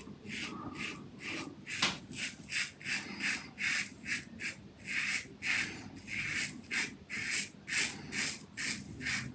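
Stainless-steel slant safety razor with a first-use Wizamet Super Iridium blade cutting three-day stubble through shaving lather: a run of short, scratchy strokes, a little under three a second, starting about two seconds in.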